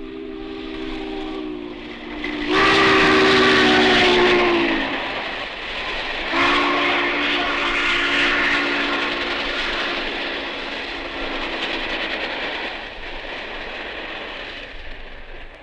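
An American steam locomotive's chime whistle blows three blasts, each a chord of several tones. The loudest sags in pitch as it ends, and the last is long. The train's rumble and clatter run underneath and fade near the end.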